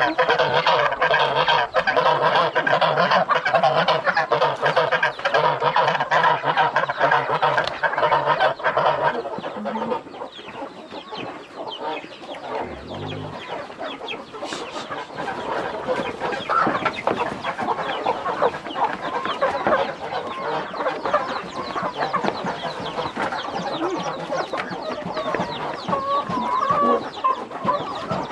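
A flock of farm poultry calling: dense, loud, overlapping honking calls for about the first nine seconds, then quieter, scattered clucking and chattering for the rest.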